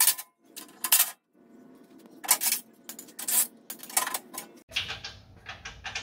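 A cordless driver backing out skid-plate bolts in a series of short, sharp metallic bursts, mixed with the clink of loose bolts and the metal skid plate.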